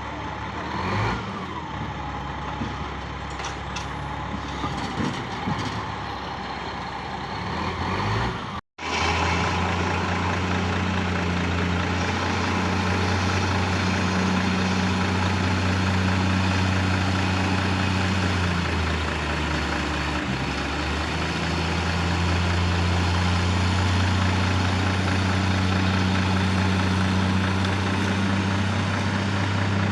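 Heavy diesel engine running steadily with a deep drone. The sound drops out for an instant about nine seconds in, and the engine note dips briefly around twenty seconds in before steadying again.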